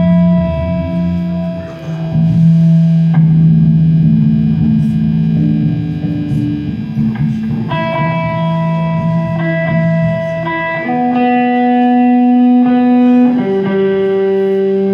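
Electric guitar and bass guitar holding long sustained notes that change every two or three seconds, with no steady drum beat.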